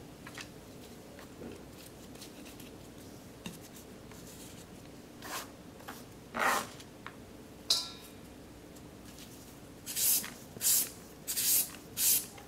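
Green papaya being shredded with a handheld julienne shredder: short rasping scrapes of the blade across the firm flesh, a few scattered ones and a click early on, then four quick strokes in a row near the end.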